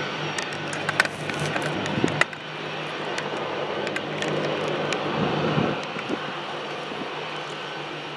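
Steady drone of an aircraft engine, swelling a little about two-thirds of the way in, with a few sharp clicks near the start.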